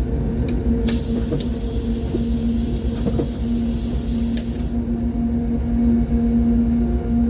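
Train's diesel locomotive running with a steady low drone and rumble. About a second in, a high hiss starts over it, runs for nearly four seconds and cuts off suddenly, with a few light clicks along the way.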